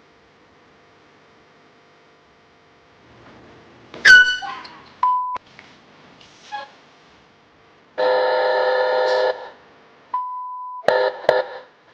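Horn honking: a loud, steady honk lasting just over a second, then a few short honks near the end. Short steady beep tones fall before and after the long honk, and a sharp squeak falling in pitch comes about four seconds in.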